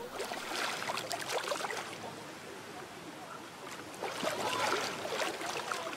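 Ocean water lapping and splashing in small gurgles, rising twice: about a second in and again between four and five seconds in.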